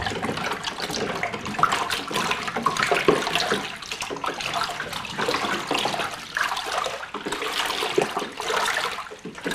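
Cornmeal-and-sugar moonshine mash being stirred with a stick in a plastic cooler of water, the liquid sloshing and swishing irregularly as the sugar is worked in to dissolve.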